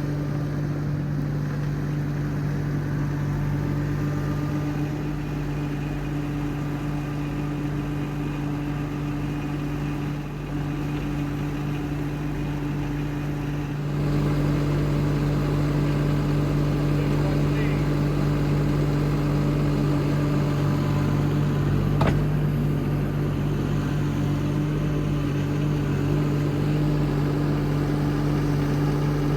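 Skid steer engine running steadily, with a constant hum. It steps up louder about halfway through, and there is a single sharp click later on.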